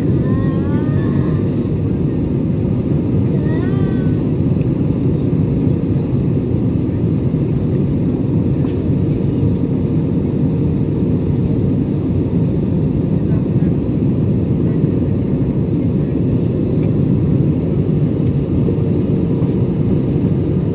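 Steady cabin noise of an Airbus A320-family jet airliner heard from a window seat: a constant deep rush of engines and airflow with a steady hum over it, during the descent to land.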